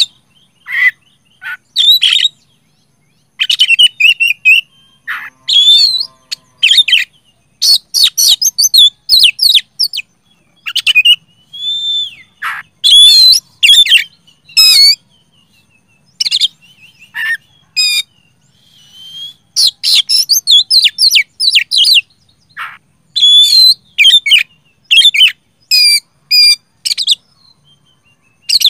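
Oriental magpie-robin singing loudly and continuously: rapid phrases of sharp, varied whistles and chattering notes, with short pauses between phrases.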